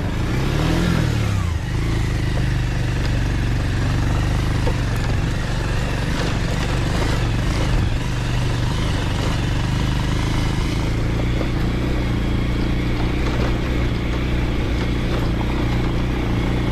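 Motorcycle engine running at a steady riding pace over a loose gravel track, its pitch rising and falling briefly about a second in. Tyres and loose parts rattle over the stones.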